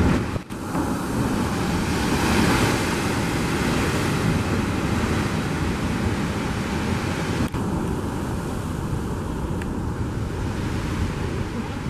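Heavy sea surf churning and breaking in a rock chasm below limestone cliffs, a steady roar of white water that swells a little about two seconds in. Wind buffets the microphone, and the sound drops out for an instant twice.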